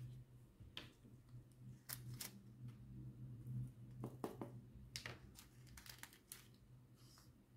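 Faint scattered clicks and taps of small clear plastic storage containers and a plastic drill tray being handled and set down on a table, over a faint steady low hum.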